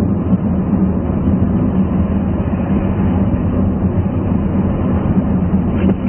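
Car driving at speed, a steady low rumble of engine and tyres heard from inside the cabin.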